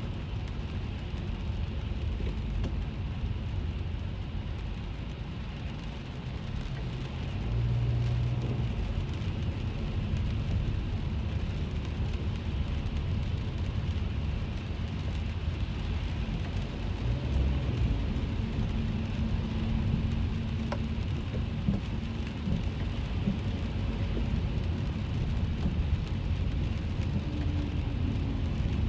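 Rain falling on a car, heard from inside the cabin while driving, over a steady low rumble of engine and tyres on wet road. The rumble gets a little louder about seven seconds in.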